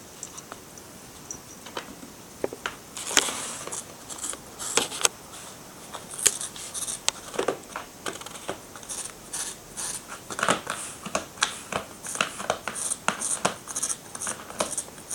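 A cat scratching and working at a claw scratcher dusted with silvervine powder: a run of short, sharp, rasping strokes, several a second and irregular, starting about three seconds in after a few quiet seconds.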